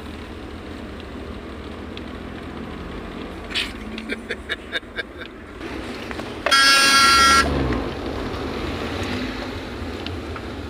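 Vehicle horn sounding over steady road and engine noise heard from inside a moving car: a quick run of about seven short beeps starting about three and a half seconds in, then one loud blast of about a second, the loudest sound.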